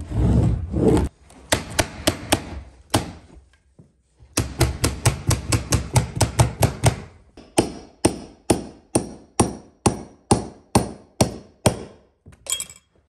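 A carpet-installation tool striking again and again as the stair runner is fastened: a steady series of sharp clacks, quicker (about four a second) in the middle and slowing to about two or three a second near the end, after a second of rough scraping noise at the start.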